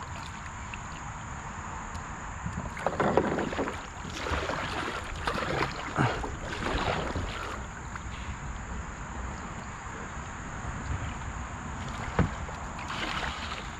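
Kayak paddle strokes swishing and splashing in shallow river water, with knocks of the paddle or hull twice, over a steady high insect buzz.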